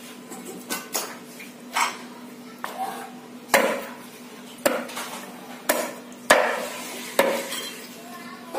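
Cleaver chopping and mincing softshell turtle meat on a chopping block: about ten sharp chops, unevenly spaced, the heaviest in the second half. A faint steady hum runs underneath.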